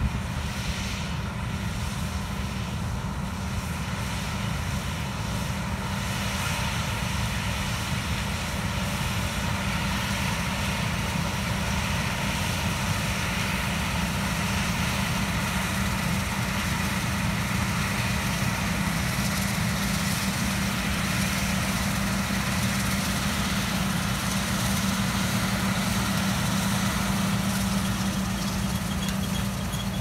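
John Deere combine harvesting soybeans: a steady engine drone with machinery noise, growing slightly louder as the combine comes closer.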